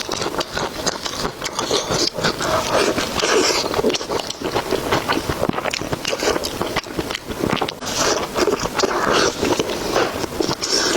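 Close-miked chewing and eating: a dense, irregular run of small mouth clicks and crunches.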